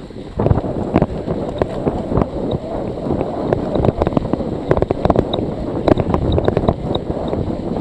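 Wind buffeting the microphone of a Scott Speedster CX bike-mounted camera at about 25 km/h in falling snow, over the steady rumble of tyres on a snow-covered road, with frequent short knocks and rattles from the bike.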